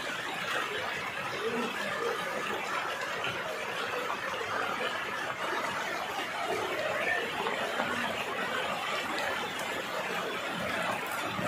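Steady rushing noise of floodwater flowing through a street, with faint indistinct voices.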